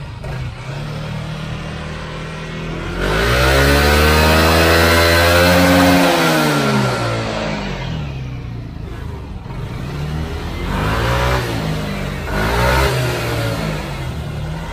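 Yamaha NMAX scooter's single-cylinder engine revved in place on the throttle: it rises about three seconds in, holds high for a few seconds, falls back to idle, then gives several shorter blips, while it is being tuned on a Pitsbike racing ECU.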